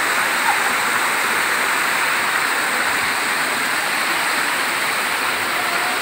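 Water of a waterfall cascading over boulders, a steady, even rush.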